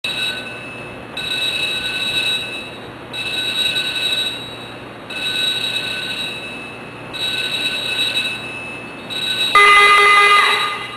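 Warning alarm in a short-circuit test bay, sounding a steady tone in one-second beeps about every two seconds, which signals that a test is about to be fired. Near the end comes a louder, lower horn-like tone lasting about a second.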